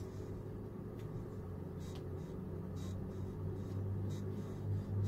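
Steady low electrical hum of a quiet room, with a few faint short puffs of breath as a man draws on a cigarette and exhales smoke.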